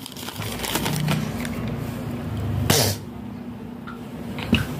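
Paper and cardboard box packaging rustling and scraping as the lid is lifted off a laptop box, with one short sharp noisy burst a little past halfway, then quieter handling with a few light clicks near the end.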